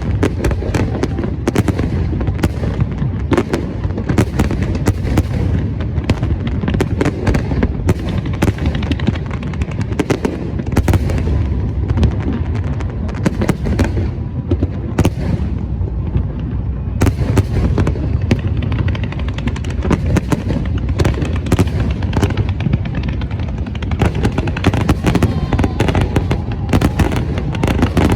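Large fireworks display in full barrage: rapid bangs and booms, several a second, over a continuous low rumble. The high crackle thins briefly a little past the middle, then the barrage resumes.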